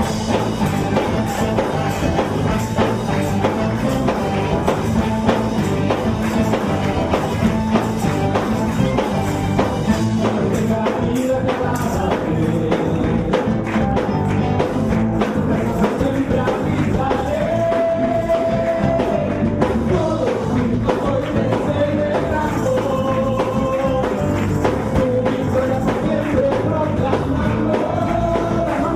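Latin gospel song performed live: a male lead singer with female backing vocals over upbeat accompaniment with a steady beat, a long held sung note a little past halfway.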